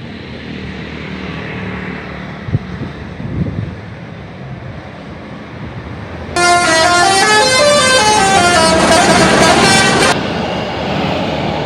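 Bus 'telolet' multi-tone air horn playing a quick melody of stepping notes for about four seconds, starting about six seconds in and cutting off suddenly, over bus engine and road noise.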